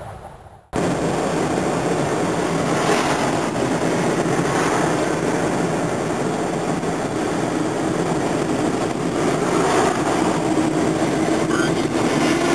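Steady road and engine noise of a moving vehicle, cutting in abruptly under a second in after a brief near-silence.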